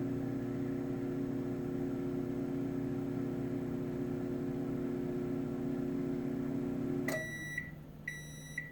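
Toshiba microwave oven running with a steady hum, then shutting off about seven seconds in and beeping to signal the end of its cycle: two beeps, with a third just starting.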